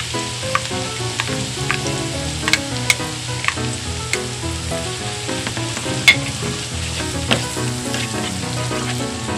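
Margarine and garlic sizzling in a nonstick frying pan as ketchup is poured in and stirred with a spatula, with scattered sharp clicks of the spatula against the pan, the loudest about six seconds in.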